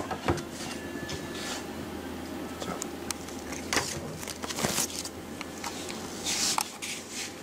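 Steady fan hum of a powered-up Tektronix TDS8000 sampling oscilloscope, with scattered clicks and brief rustles of handling over it.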